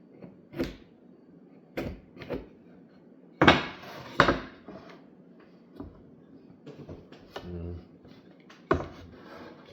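Hand tools being handled on a wooden trim board while a 45-degree cut is laid out: a string of separate knocks and clacks, loudest about three and a half seconds in.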